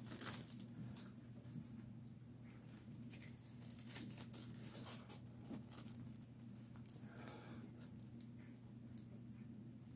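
Faint crinkling and rustling of a plastic zip-top bag being opened and handled, with small clicks scattered through. A low steady hum runs underneath.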